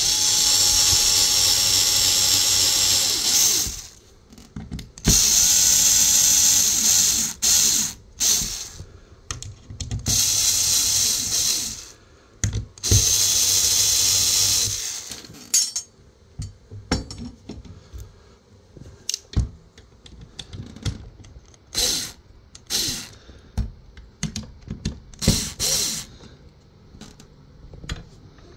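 Cordless drill running in four bursts of two to three seconds each, stopping and starting again; after that come scattered clicks and knocks, with a couple of short bursts near the end.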